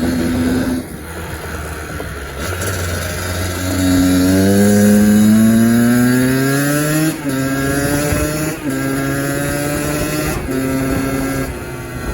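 Kawasaki KX85 two-stroke engine under way: its pitch climbs steadily for about three seconds as it accelerates, loudest there, then drops sharply at a gear change and holds fairly steady with a few brief dips off the throttle.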